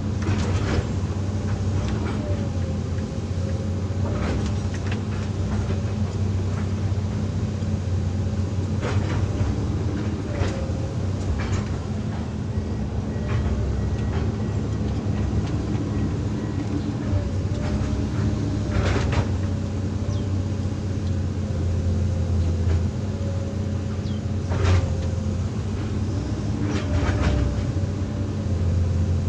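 Hydraulic excavator working: its diesel engine runs steadily under load with a whine that wavers slightly in pitch, while a few short knocks and clanks sound now and then, the loudest about 25 seconds in.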